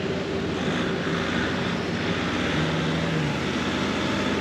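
A vehicle engine running steadily, its pitch shifting a little, as it drives slowly over a muddy track.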